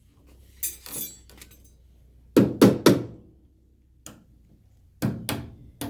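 Hammer tapping a small metal pin into a casket lid hinge arm: a few light taps, then three loud, quick strikes about halfway through, and two more strikes near the end.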